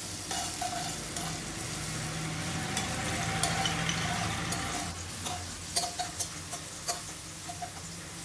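Chopped garlic sizzling in hot oil in a metal wok, stirred with a metal spoon that scrapes and clinks against the pan. The sizzle is strongest for the first five seconds; after that it eases and a few sharp clinks of the spoon stand out.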